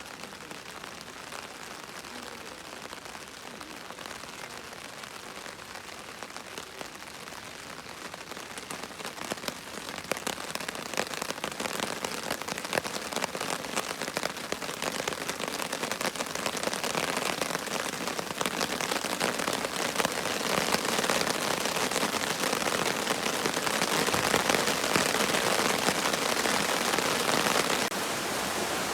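Rain falling and pattering on surfaces as a dense, steady hiss of drops, growing steadily louder and heavier over the stretch.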